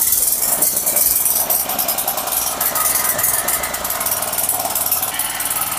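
Honda GK200 single-cylinder four-stroke engine (3 HP) running steadily with a rapid, even firing beat, driving a 2.5 kW generator alternator.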